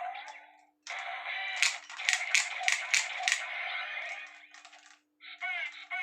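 DX Drive Driver toy belt playing its electronic sound effects and music through its small speaker. A quick run of six sharp clicks comes in the middle, and warbling, sweeping chirps follow near the end.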